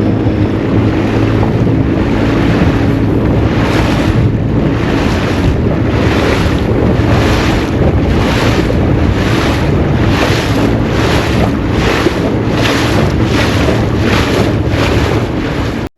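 Small fishing boat underway with its motor humming steadily and heavy wind noise on the microphone. From a few seconds in, a regular whooshing pulse comes about every three-quarters of a second.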